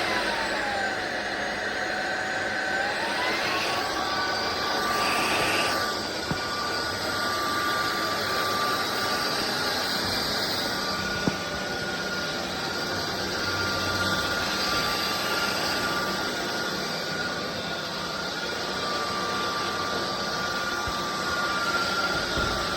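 SunSare X7A cordless stick vacuum running, a steady rush of air with a high motor whine. The whine dips in pitch and then rises again a few seconds in.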